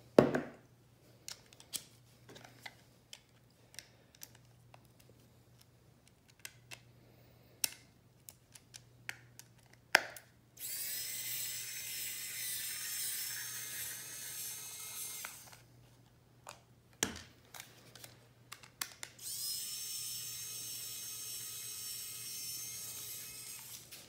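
Small Harbor Freight cordless electric screwdriver running twice, about five seconds each time, with a steady whine, driving Torx screws out of the plastic gearbox cover of a robot vacuum drive wheel. Light clicks and knocks of handling the plastic parts come before.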